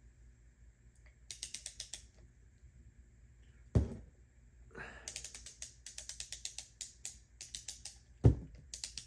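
A 3/8-inch drive torque wrench ratcheting in runs of rapid clicks as a crank arm bolt is tightened toward 40 newton metres. Two thuds stand out, about four seconds in and again near the end.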